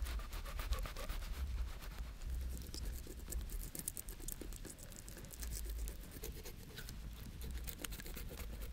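Wood fire crackling: a steady, irregular run of small sharp pops and snaps, with a low rumble underneath that comes and goes.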